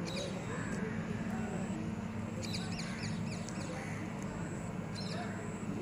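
Birds calling: short groups of quick chirping strokes, about halfway through and again near the end, over a steady low rumble.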